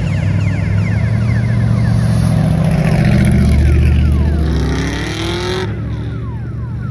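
A car engine running loud under hard driving, its pitch climbing as it revs up about four to five seconds in. Just before the end the higher part of the sound drops away suddenly, leaving the low engine hum.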